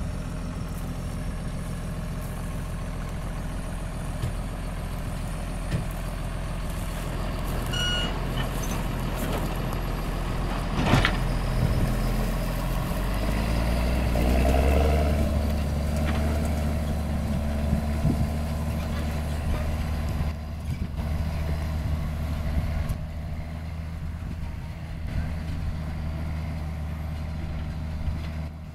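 John Deere 6920 tractor's six-cylinder diesel engine running under load as it pulls an air seeder. About 12 to 15 seconds in, the revs rise and then hold steady at the higher pitch. There is a short high beep about 8 seconds in and a sharp click about 11 seconds in.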